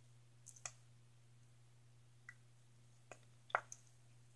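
A few small, sharp plastic clicks and taps from a lipstick tube and its cap being handled, the loudest about three and a half seconds in, over a faint steady hum.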